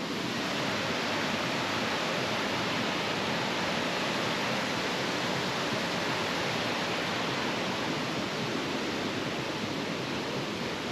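Datanla Waterfall rushing: a steady, even wash of falling water.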